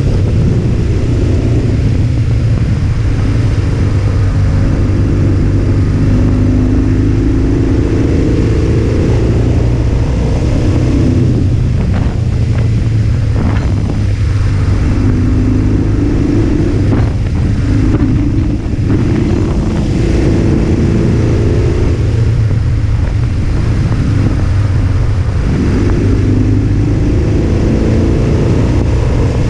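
Motorcycle engine running as the bike rides along at road speed, its pitch rising and falling with the throttle and gear changes, over a steady low hum and rushing noise.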